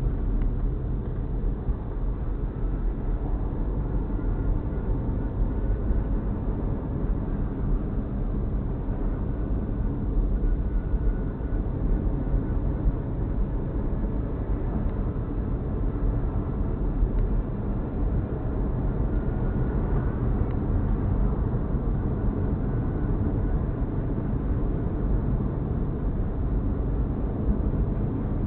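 Car driving at road speed, heard from inside the cabin: a steady low rumble of road and engine noise.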